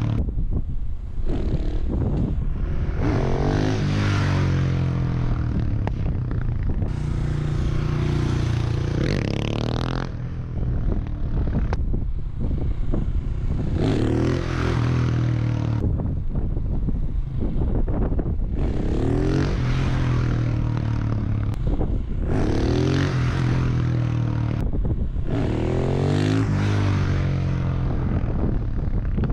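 Husqvarna 701 Supermoto's single-cylinder engine through its Wings exhaust, revved hard about six times as the bike accelerates past for wheelie attempts, each rev rising and then falling away. Wind buffets the microphone the whole time.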